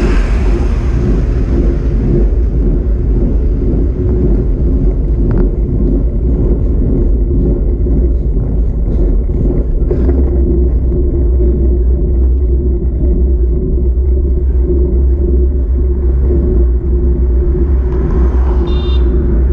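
Steady rumble of wind buffeting a bike-mounted microphone, with tyre noise from a bicycle rolling downhill at speed. An oncoming car passes near the end.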